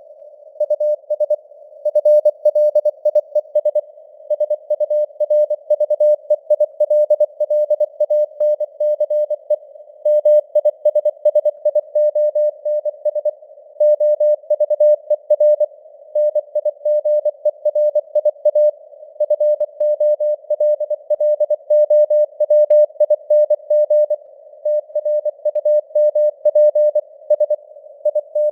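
Morse code (CW) sent at 24 words per minute as a single steady tone keyed on and off in dots and dashes, with short pauses between words. It plays over a narrow band of simulated radio hiss around the tone.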